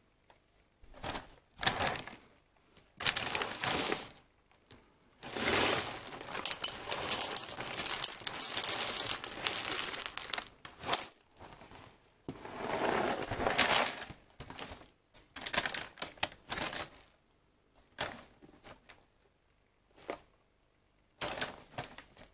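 Honey-corn cereal balls (Kellogg's Honey Bsss Pops) poured into a glass bowl, a long dense rattle about five seconds in and another shorter one later. Shorter bursts of crinkling and knocking of the packaging being handled come before and after.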